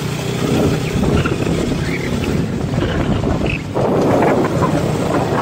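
Wind buffeting the microphone on a moving motorcycle, a loud rough rush, with the motorcycle's engine humming steadily underneath.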